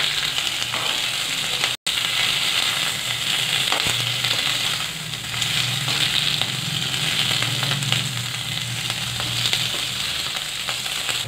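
Slit green chillies sizzling in hot oil with mustard seeds in a steel kadhai while a metal ladle stirs them: a steady frying hiss with faint scrapes and crackles. The sound cuts out for an instant about two seconds in.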